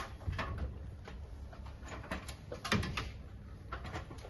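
Scattered clicks and knocks of a plastic trim frame being pulled off the inside of a Scania truck door as its clips let go, the loudest knock a little before three seconds in, over a low steady hum.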